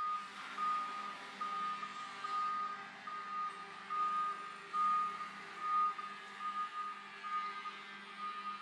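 Doosan forklift's warning beeper sounding a repeated high beep while the truck travels, over a low steady hum.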